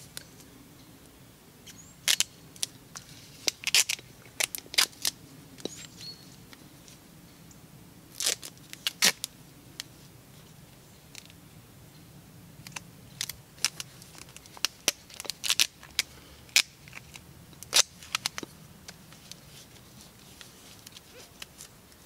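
Wide silver duct tape being pulled off its roll and wrapped around a jam jar's metal lid to seal it, giving short irregular rips and crackles in scattered clusters.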